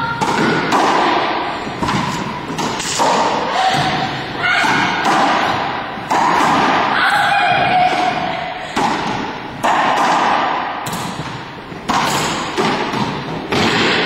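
Racquetball rally: racquets striking the ball and the ball hitting the walls and hardwood floor, a quick irregular series of sharp thuds echoing in the enclosed court.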